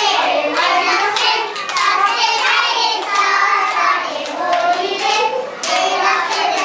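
A group of young children singing an action song together, with hand claps.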